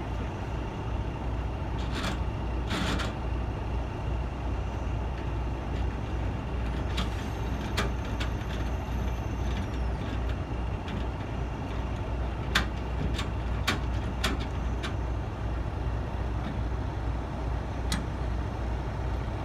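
Heavy truck's diesel engine running steadily at low revs as the prime mover slowly reverses the semi-trailer toward the dolly, with a scatter of sharp metallic clunks and knocks.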